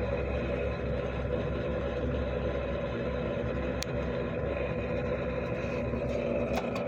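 Magic Chef refrigerator running with a steady mechanical hum, its back opened up while its condenser fan is broken.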